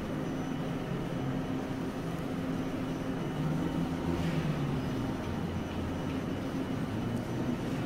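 Kagoshima City streetcar standing at the platform with its equipment running: a steady low hum with a few held tones.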